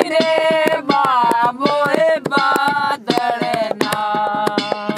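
Background music: a held, wavering melody over a fast, steady percussion beat.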